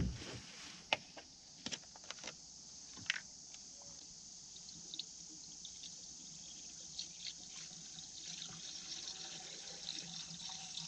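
Coolant being poured from a jug into a tractor's radiator, a steady liquid trickle that grows a little louder toward the end. A few sharp clicks and knocks in the first seconds.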